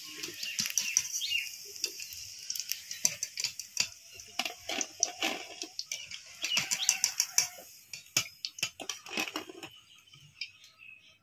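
Deep-fried semolina balls being lifted out of hot oil in a metal kadai with a wire-mesh skimmer: the oil sizzles while the metal skimmer and spatula scrape and clink against the pan. The clatter stops near the end.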